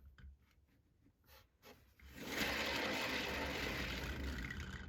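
Cake-decorating turntable spun by hand under a painted canvas, its bearing running with a steady whirring rattle for about two and a half seconds, starting about two seconds in and stopping near the end.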